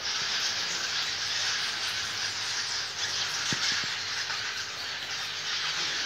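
Many swiftlets twittering together in a dense, steady, high chatter.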